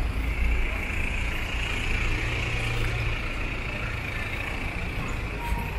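Street traffic, with a large vehicle's engine running close by as a steady low hum.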